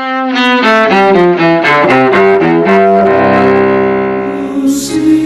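Opening theme music: a quick run of short notes, then a held chord that fades away.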